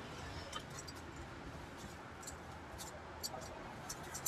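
A few light clicks and rustles from metal tongs picking up fried pieces off a metal tray and dropping them into a plastic bag, over a steady background hum.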